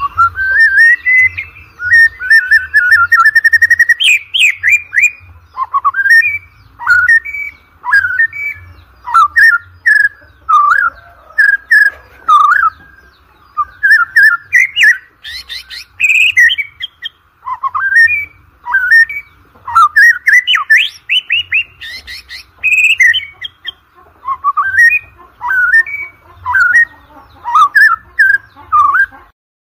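White-rumped shama singing loudly: a fast, varied stream of clear whistled phrases, slurred notes and rapid trills, delivered in bursts of about a second with short gaps between them.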